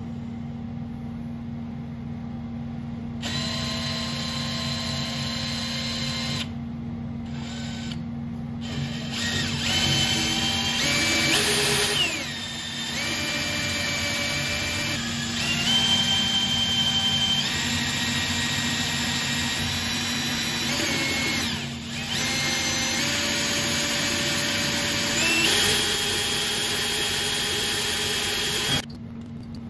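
Metal lathe running with a steady low hum and a motor whine that shifts up and down in pitch in steps every few seconds.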